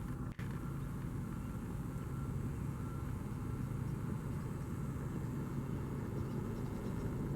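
A vehicle engine running steadily at idle, with a faint reversing alarm beeping on and off.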